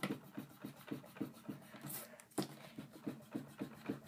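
A Pentel Hi-Polymer block eraser rubbed back and forth over pencil marks on a Post-it note, faint quick strokes at about four a second.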